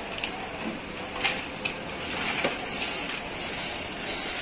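Steel lifting chains clinking and rattling as they are handled and rigged around a truck diesel engine. There are a couple of sharp clinks in the first second and a half, then a longer rattle of chain links about two seconds in.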